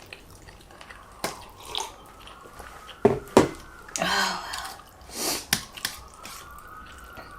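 Eating sounds from spaghetti and meatballs: sharp clicks and knocks of cutlery against a plate, loudest twice about three seconds in, with short wet slurps and chewing around four and five seconds in.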